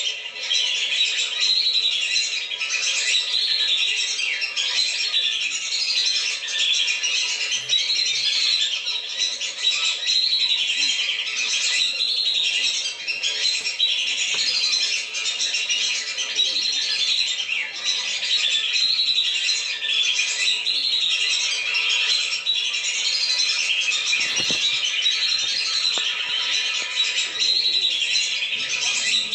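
Lesser whistling ducks (belibis) calling without pause: a dense chorus of short, high, repeated whistles, a lure-call recording meant to draw wild flocks down.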